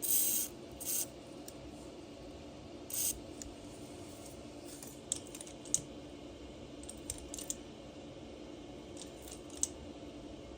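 Metal hand tools working on a broken exhaust stud: three short scrapes in the first three seconds, then scattered light metallic clicks and clinks, over a faint steady hum.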